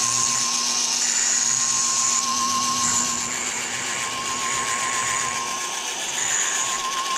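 Foredom flexible-shaft rotary tool running steadily with a high, slightly wavering whine, its handpiece grinding in the knockout (drift) slot of a tapered steel tool with a light grinding hiss.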